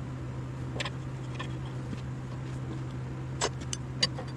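A few light metallic clicks and clinks as bolts and nuts are handled, over a steady low hum.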